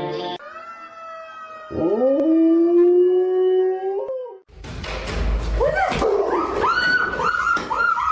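A dog howling: one long call that swoops up and then holds steady for about three seconds. Then, a little past halfway, a quick run of short high yips, about three a second, over a rough background noise.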